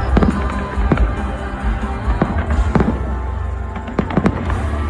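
Aerial fireworks bursting in a string of about six sharp bangs, irregularly spaced, over loud music playing.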